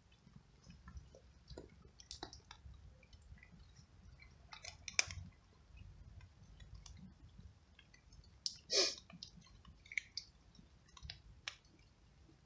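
Cat crunching dry kibble: irregular small clicks and crunches, with a couple of louder crunches about five and nine seconds in.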